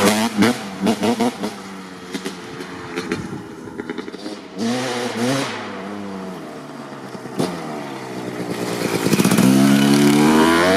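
Honda CR250R's 250cc two-stroke engine, fitted with a Pro Circuit R-304 shorty silencer, revving hard as the dirt bike is ridden. There are sharp throttle blips at the start, quieter running in the middle, and it grows louder over the last few seconds as the bike comes close.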